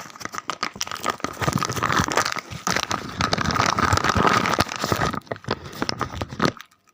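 Thick foil-lined bag crinkling steadily as it is handled, a dense crackle that stops shortly before the end.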